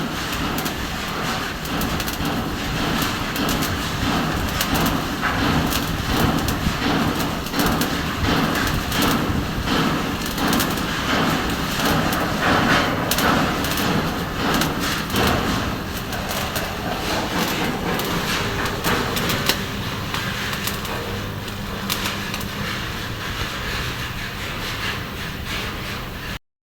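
Arc welding: a continuous crackling, sizzling arc over a low steady hum, cutting off abruptly near the end.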